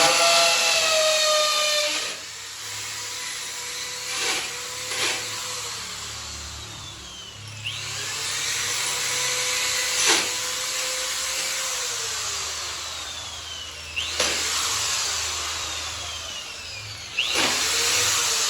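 Electric drill boring a hole for a hook: the motor whines up at the start, then runs in several long stretches whose pitch sags and picks up again as the bit bites, with a few short knocks between.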